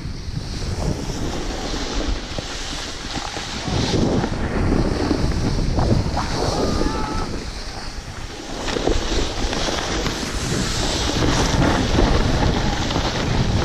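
Wind buffeting a GoPro's microphone during a fast run down a groomed ski slope, mixed with the hiss and scrape of sliding over packed snow. The rush swells and eases as the speed changes.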